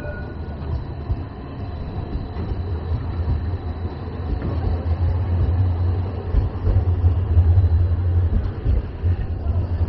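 Edinburgh tram passing on street rails: a low rumble that swells to its loudest a couple of seconds before the end, then eases off.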